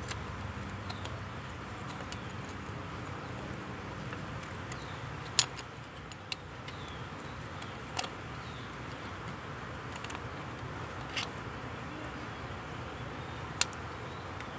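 A steel rod prying at a holed freeze plug in an engine block, giving a few sharp metallic clicks at irregular intervals, the loudest about five seconds in.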